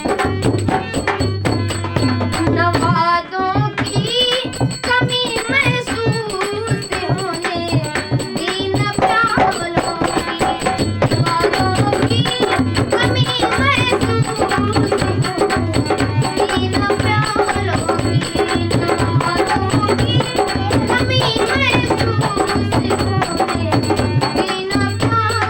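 Ghazal music without words: tabla playing a steady rhythm under a wavering melodic lead line.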